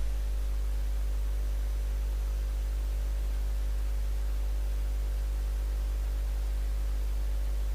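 Steady electrical mains hum with hiss: a low buzz and a stack of evenly spaced overtones, unchanging throughout.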